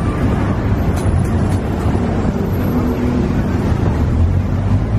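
Steady low rumble of outdoor background noise, with a few light clicks between one and two seconds in.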